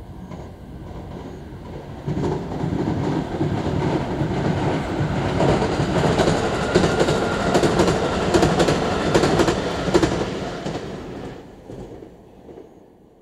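Marine Liner five-car electric train (JR Shikoku 5000 series coupled to a JR West 223-5000 series) running through a station without stopping. Its wheels clack over the rail joints in a quick run of clicks as it passes. The sound rises sharply about two seconds in and fades away near the end.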